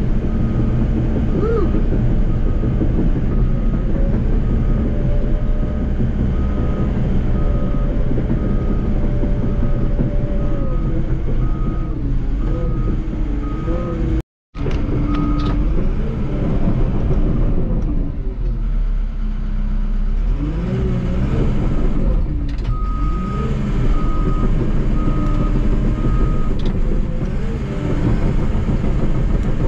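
Cat D3 bulldozer's diesel engine running under changing load, heard from inside the cab, with its engine speed rising and falling. A back-up alarm beeps steadily through the first half and again for a few seconds later on while the dozer reverses.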